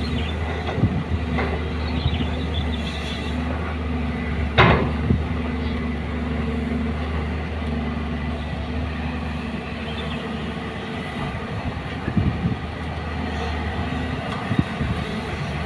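Heavy diesel engine of a JCB excavator running steadily while loading a dump truck, with one sharp clank about five seconds in. The drone eases off near the end.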